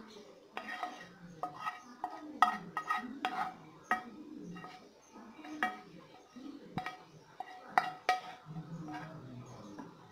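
Wooden spatula scraping and knocking against a metal pan and a steel mixer jar while fried onions and spices are transferred for grinding: irregular knocks, each with a short metallic ring, over a soft scraping.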